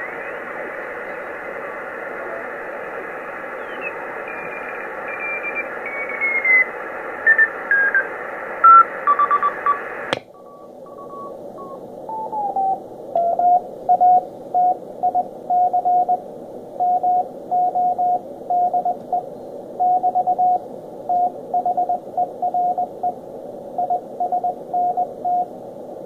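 Morse code (CW) signals on the 40-metre band heard through the Sproutie MK II regenerative shortwave receiver, over band hiss. For the first ten seconds the beat-note tone slides down in pitch as the receiver is tuned; then a click, after which the hiss is narrower and one station's Morse keys on and off at a steady pitch.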